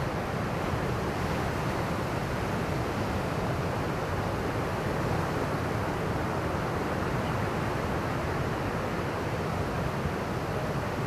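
Ocean surf washing in a steady, unbroken rush, with wind on the microphone.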